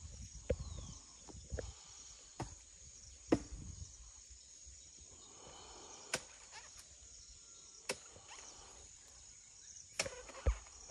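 Sharp knocks, about eight of them at irregular intervals, over a steady high-pitched drone of insects.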